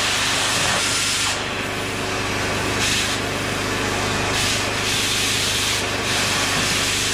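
Oxy-fuel cutting torch cutting steel, a continuous hissing roar that is loudest for the first second or so and then swells again briefly three times.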